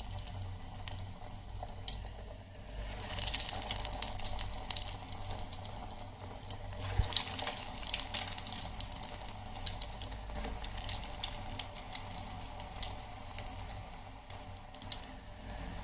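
Breaded chicken pieces deep-frying in hot oil in an electric kettle: a steady sizzle with dense, irregular crackling and popping.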